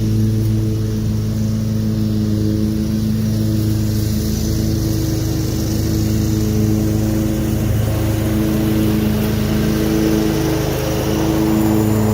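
Cub Cadet Pro X 654 stand-on mower running steadily at a constant engine speed while mowing with the grass collector fitted.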